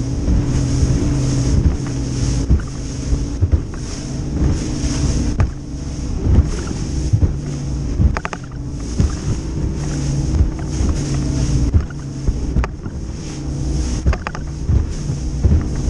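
Bass boat running at speed over chop: the outboard engine's steady drone under wind buffeting the microphone, with the hull knocking and slapping through the waves again and again and throwing spray.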